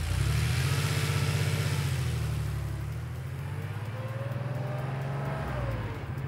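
Car engine sound effect as a cartoon taxi drives along: a steady, pulsing low rumble, with a tone that rises and then falls near the end.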